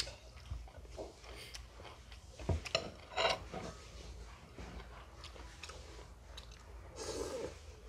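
A man chewing a mouthful of Khmer rice noodle soup close to the microphone, with irregular wet mouth noises that grow louder for a moment about two and a half seconds in, and a short noisy burst near the end.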